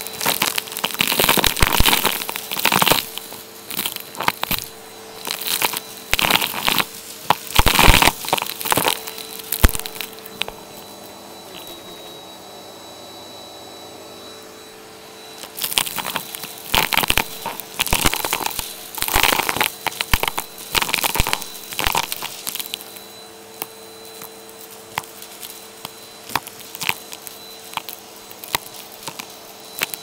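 Vacuum cleaner with a brush attachment sucking up nut shells, beads, buttons and bits of plastic from carpet: rapid crunching and crackling as the debris rattles up the hose, over the steady hum of the motor. About a third of the way in the crunching stops for a few seconds, leaving only the motor, then it starts again and thins out near the end.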